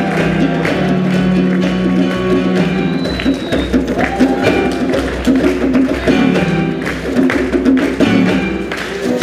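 Instrumental music: plucked strings and percussion over steady, shifting bass notes.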